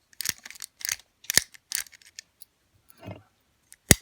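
A small lever padlock being handled and worked: a quick series of sharp metallic clicks, a dull knock about three seconds in, and a single loud click at the end.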